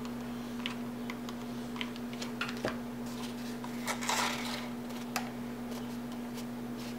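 Stiff cardstock paper petals being handled, glued and pressed together by hand: scattered light clicks and taps, with a louder paper rustle about four seconds in, over a steady low hum.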